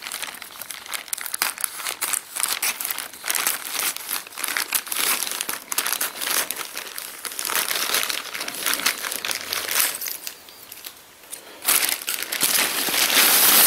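Plastic mailer bag crinkling and rustling as it is cut open with scissors and handled. It drops quieter for about a second, then the crinkling gets louder and more continuous near the end as the bag is pulled open.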